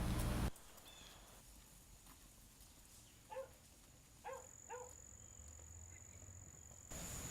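Three faint, short pitched animal calls, the first about three seconds in and two more close together about a second later.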